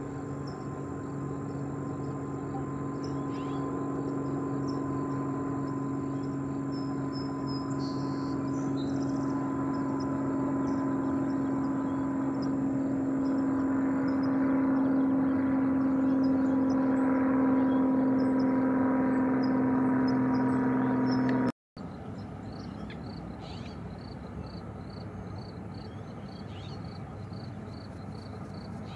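A steady motor drone at one unchanging pitch, slowly growing louder, that stops abruptly about three-quarters of the way through. Faint short calls of Forster's terns come through, and after the drone stops a quieter hiss remains with a fast, even, high ticking.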